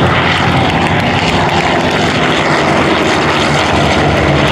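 Vought F4U Corsair's 18-cylinder Pratt & Whitney R-2800 radial engine running steadily as the propeller fighter flies past, a loud, even drone.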